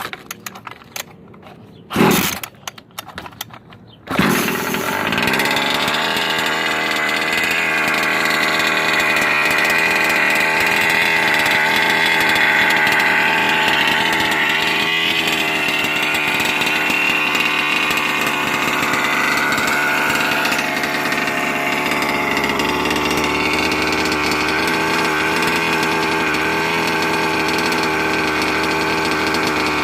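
Small gas engine of a 1/5-scale RC car being started: two short cranking bursts, then it catches about four seconds in and runs steadily with a buzzing, chainsaw-like note.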